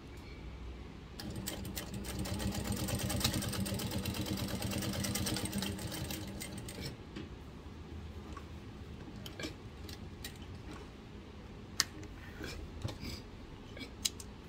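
Juki 8700 single-needle lockstitch flat-bed sewing machine stitching leather. It starts about a second in, runs at a fast, even stitch rate for about five seconds, then stops. A few sharp clicks follow.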